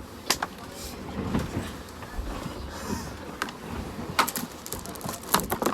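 Scattered sharp clicks and knocks, like things being handled, with a quick cluster of them near the end.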